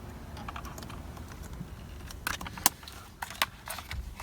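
Scattered small clicks and light rattling from hand tools and small parts being handled during a steering wheel install, with the sharpest click about two and a half seconds in.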